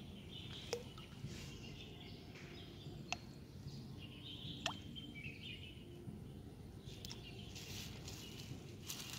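Outdoor ambience: a steady low rumble with birds chirping on and off, and three sharp clicks, the first under a second in, then about three and about four and a half seconds in.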